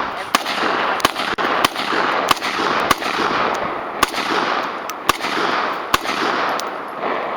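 AR-15 rifle shots fired semi-automatically at an uneven pace, about eight of them over six seconds, over a steady rushing noise.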